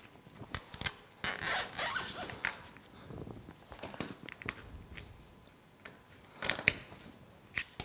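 Large automotive-type cable ties being pulled tight, their teeth ratcheting through the locking heads in quick zipping runs: one starting about half a second in and lasting about two seconds, another near the end.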